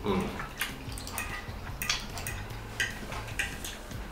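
Metal fork clinking and scraping against a ceramic plate of sauced pasta, a handful of irregular clicks, with chewing.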